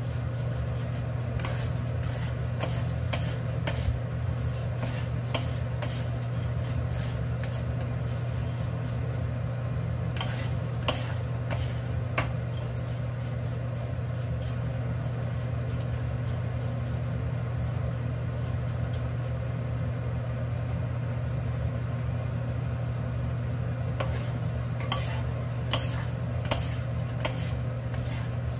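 Tiny dried anchovies being stirred and dry-roasted in a nonstick frying pan with a wooden spatula: a dry rustle and sizzle with scattered clicks and taps of the spatula against the pan, over a steady low hum.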